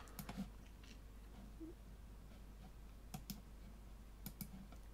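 Faint computer mouse clicks over quiet room tone: a few scattered clicks, with two quick pairs about three and four seconds in.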